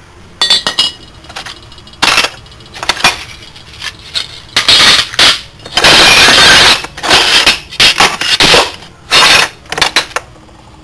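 Stainless steel bar and angle offcuts clinking and clattering against each other as they are shifted around by hand in a box, with a longer scraping rattle in the middle.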